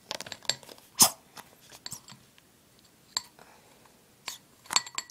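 A bottle of foaming facial cleanser being squeezed as the cleanser streams out, giving irregular short clicks and crackles. They are busiest in the first two seconds, the loudest about a second in, and sparser after that.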